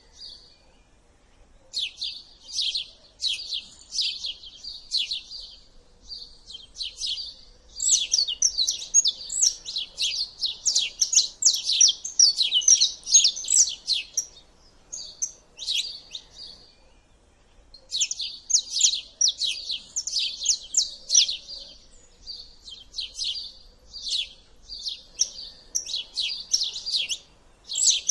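Small songbirds singing: fast runs of high, sharp chirps and trills in bouts of several seconds, with short pauses between bouts.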